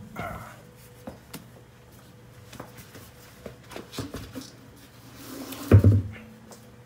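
Light clicks and knocks of a steel car wheel being worked off its hub and handled, with one heavy thump near the end.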